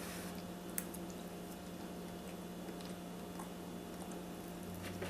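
Quiet room with a steady low electrical hum and a few faint clicks and small handling noises, one click a little under a second in and a couple near the end.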